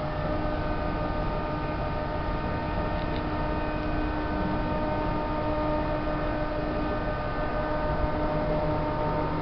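A machine running steadily: a constant hum of several fixed tones over a low rumble.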